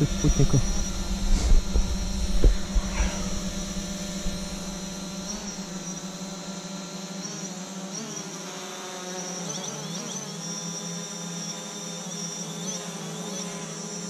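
Quadcopter drone's electric motors and propellers spinning with a steady, insect-like buzzing whine, the pitch shifting a little about two-thirds of the way through. A low rumble underneath dies away about halfway.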